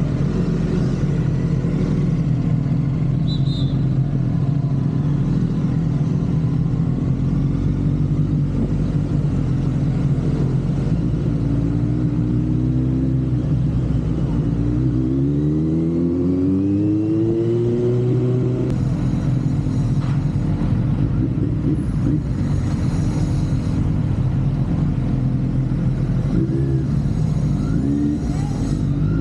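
Kawasaki Z900's inline-four engine running under way, the pitch dropping about halfway through as the bike slows, then climbing again as it accelerates, with smaller rises and falls in engine speed near the start and the end.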